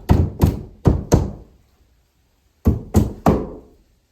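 Hammer striking wood in the cabin's rotted bottom plate, about as the nails are worked out: four quick blows, a pause of about a second and a half, then three more.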